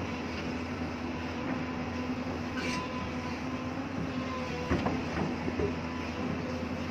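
Excavator's diesel engine running steadily under load, with a short high squeal a few seconds in and a cluster of sharp metal knocks of the bucket on rock near the end, the loudest part.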